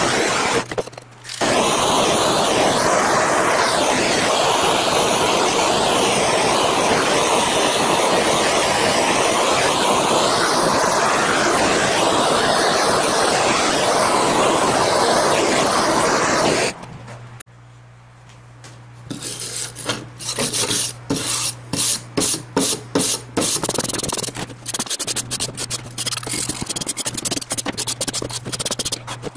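Steady rubbing and scraping for about the first seventeen seconds. It then cuts off, and a bench grinder hums steadily while the teeth of a circular saw blade are pressed to the wheel in a quick series of short grinding bursts.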